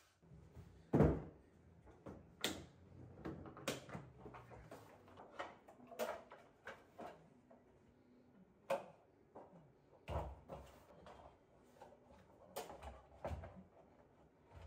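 Stanley folding trestles being unfolded and set up: a string of separate clunks and clicks from the plastic tops and metal legs being handled, the loudest about a second in.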